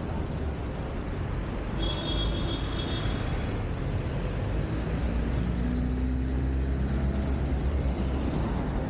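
City street traffic at an intersection: cars and motor scooters driving past over a steady low rumble. A brief high whine comes about two seconds in, and a passing engine's hum swells in the second half.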